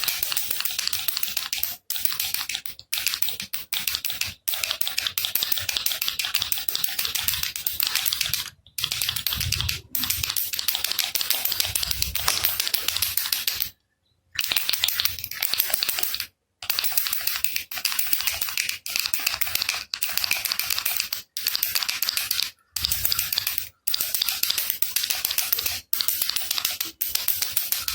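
Baby rattle shaken hard, its beads clattering rapidly in runs of one to three seconds with short pauses between.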